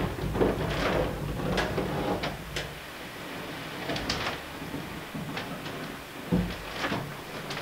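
Wind gusting across the microphone: a low rumble with irregular rustling and scraping noises that swell and fade.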